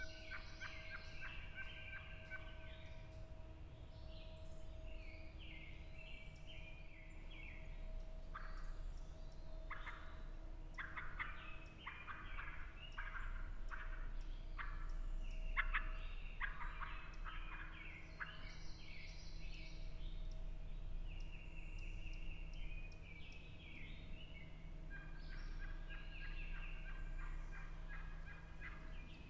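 Wild turkey gobbler gobbling, several rattling gobbles in the middle, over songbirds singing.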